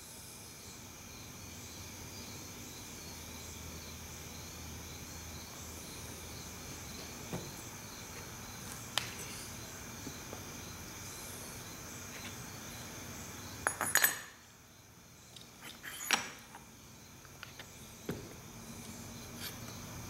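Steel transmission gears and shaft parts clinking as they are handled and fitted together by hand: a few light clinks, then a louder clatter about two-thirds of the way through. A steady background hum runs under it and cuts out right after the clatter.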